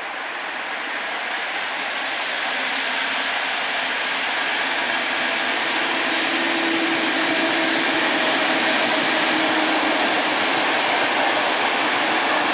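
EU07 electric locomotive and its passenger coaches passing on the track: a steady rolling rush of wheels on rails that grows louder as the coaches come by, with a faint steady hum underneath.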